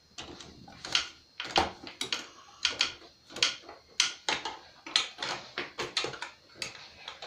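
Irregular metal clicks and knocks, one to three a second, of a wrench working the steering-column bolts on a John Deere 111 lawn tractor, a job that is proving stubborn.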